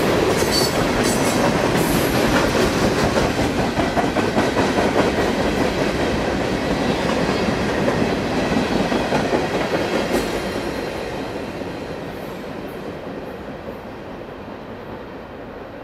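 Freight train's refrigerated boxcars rolling past close by, steel wheels running on the rails. The sound fades steadily from about halfway through as the end of the train moves away down the track.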